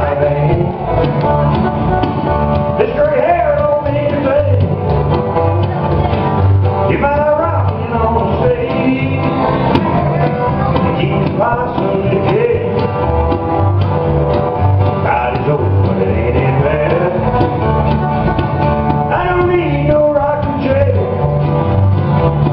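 Small country band playing live: acoustic guitars strummed over a bass line that alternates between two low notes on a steady beat, with a melody line above.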